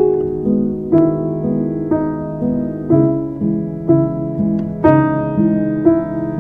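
Slow, gentle instrumental piano music, with a new note or chord struck about once a second, each ringing on under the next.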